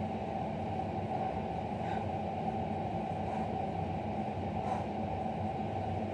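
Steady low room hum, even throughout, with no distinct footfalls or impacts standing out.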